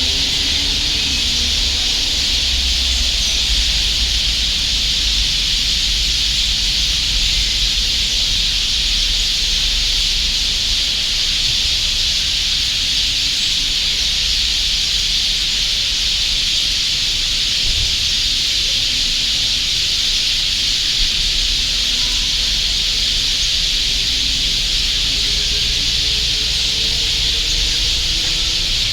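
A dense flock of sparrows chirping all at once, blending into a steady, high, hiss-like wash of sound with no single call standing out.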